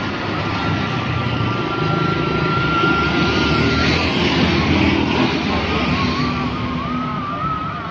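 Steady roadside traffic: a small truck, a stream of motorcycles and a car pass close by, with engine and tyre noise. A thin steady tone runs through the first half, and a wavering tone comes in near the end.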